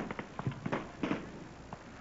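Scattered single gunshots from the firing line, irregularly spaced, the loudest one right at the start and the rest fainter.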